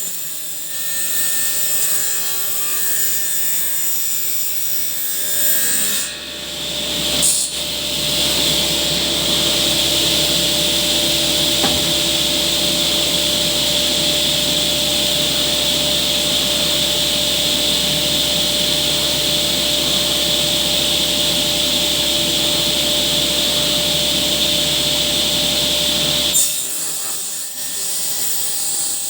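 Table saw running and cutting birch plywood: one long, steady cut with a high whine that eases off near the end.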